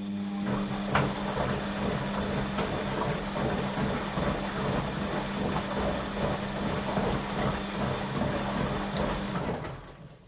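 Washing machine partway through its wash program. A motor or pump switches on with a steady electric hum over a dense, churning water noise, runs for about ten seconds, then cuts off near the end.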